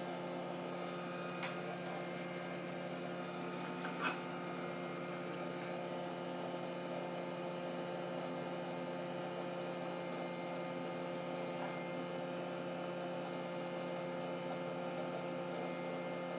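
Steady electrical hum made of several fixed tones, with two faint clicks, about a second and a half in and about four seconds in.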